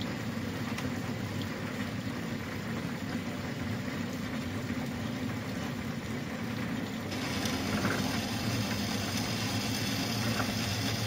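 1988 Hafco automatic bandsaw running steadily in a cut cycle: motor and blade going, with coolant spraying and the wire chip brush spinning against the blade as it feeds down onto steel box section. About seven seconds in a brighter hiss comes in and stays, as the blade starts cutting into the steel.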